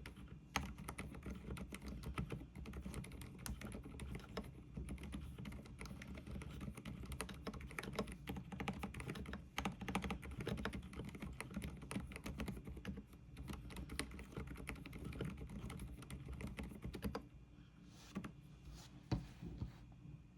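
Rapid, continuous typing on a keyboard fitted with Mstone low-noise Milky 45 g switches, thinning to a few scattered keystrokes over the last three seconds.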